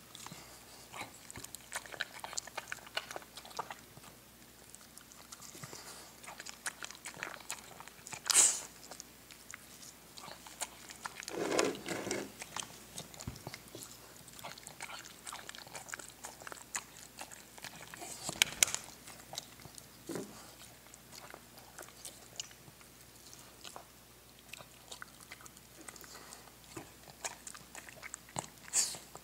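A hairless Xoloitzcuintli dog eating chopped vegetables and kibble from a ceramic bowl. The dog is old and has only its four fangs left. There is steady crunching and chewing with many small clicks, and a few louder knocks.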